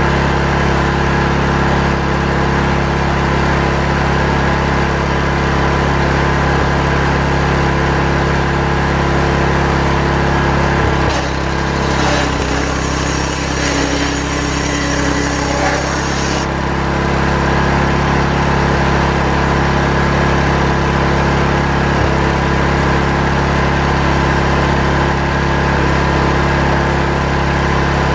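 Chainsaw running steadily while ripping a log lengthwise into timber. From about 11 to 16 seconds in, the sound changes for a few seconds: a hiss is added and the engine note dips lower.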